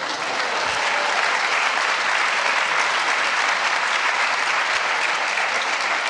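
Large audience applauding, a steady sustained clapping.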